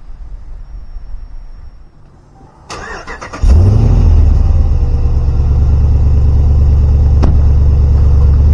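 A 2015 Ram 2500 pickup's engine is cranked by the starter and catches about three and a half seconds in, then settles into a loud, steady idle.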